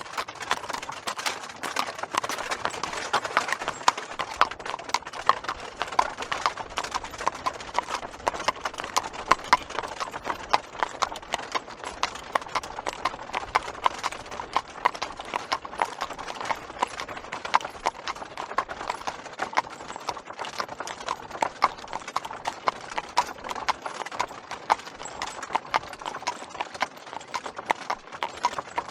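Horse hooves clip-clopping steadily, a continuous run of sharp hoof strikes.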